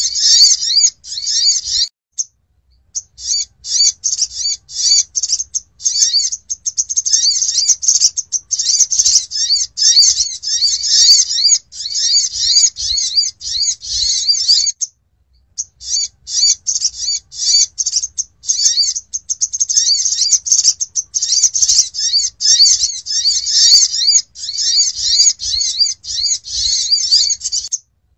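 Sunbird call recording used as a bird-trapping lure: rapid, high-pitched chattering chirps in dense bursts, breaking off briefly about two seconds in and again about halfway through.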